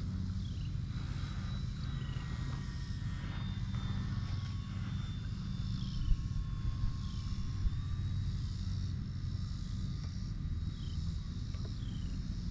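RC trainer plane's electric motor and propeller whining as it flies, the thin whine shifting slightly in pitch and stepping up about seven seconds in, over a steady low rumble. A few sharp clicks come between about six and eight seconds in, and a short falling chirp repeats about once a second.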